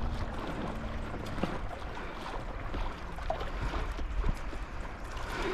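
Wind buffeting the microphone over small waves lapping and gurgling against a kayak's hull, with scattered faint ticks and splashes.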